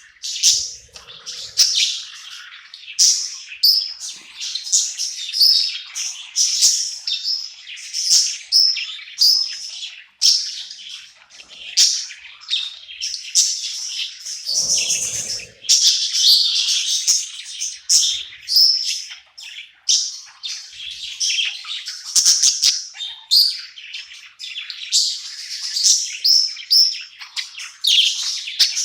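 Budgerigars chirping and warbling continuously, a busy run of quick high chirps and chatter. A brief low rustle or bump comes about halfway through.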